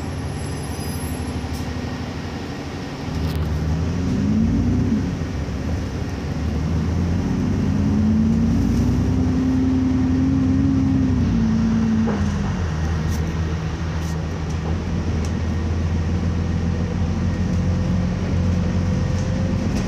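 Alexander Dennis Enviro400 double-decker bus's diesel engine, heard from inside the lower deck as the bus drives. The engine note rises and falls back about three seconds in, then climbs again, holds for a few seconds and eases off about twelve seconds in before running steady.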